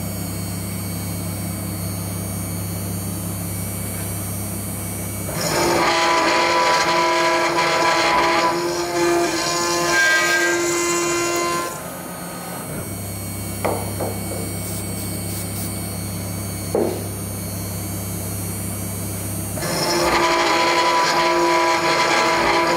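CNC router spindle with a small endmill milling 10 mm S355MC steel plate. Two spells of loud, steady, tonal cutting noise, starting about five seconds in and again about twenty seconds in, alternate with a quieter steady hum that has two short squeaks in it.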